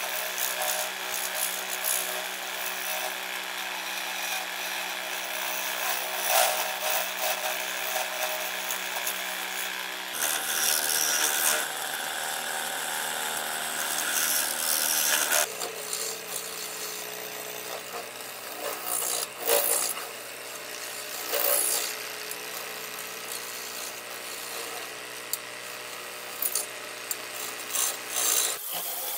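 Lathe running while a hand-held turning tool cuts into a spinning bowl blank of epoxy resin with autumn leaves cast in it: a continuous scraping hiss of the cut over the motor's steady hum, with louder surges as the tool bites. The hum changes abruptly twice, about ten and fifteen seconds in.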